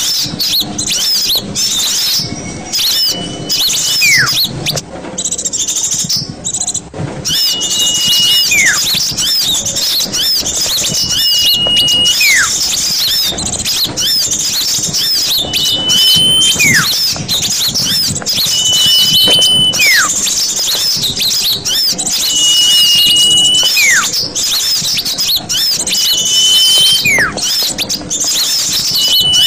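Bird-trapping lure recording: a dense, continuous chatter of many small birds, over which a call repeats about every three and a half seconds, a short held high whistle followed by a quick falling whistle.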